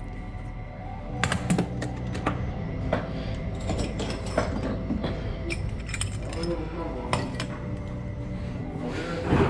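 Metal clicks and clinks of door lock and latch parts being handled and fitted, starting about a second in and bunching near the end, over background music.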